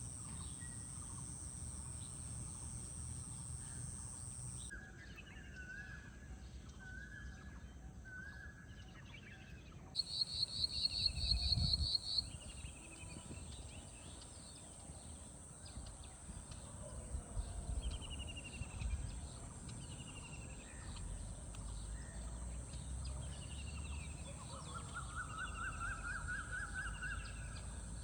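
Several birds singing: short falling phrases repeated again and again, a loud rapid trill lasting about two seconds around ten seconds in, and a lower series of notes rising in pitch near the end. Underneath there is a steady high-pitched drone and a low rumble.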